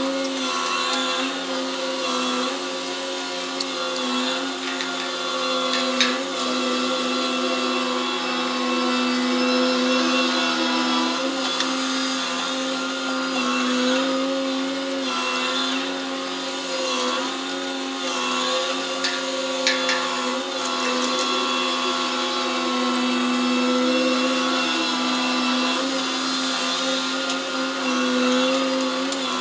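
Grab crane of a gut ship at work unloading gravel: a steady machinery drone from its engine and winches, wavering slightly as the clamshell grab is hoisted and swung, with a few brief knocks.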